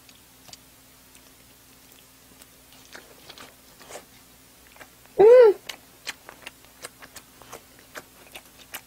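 Close-miked chewing of a Vienna sausage, a run of soft wet mouth clicks and smacks. About five seconds in, one short voiced sound rises and falls in pitch and is the loudest thing heard.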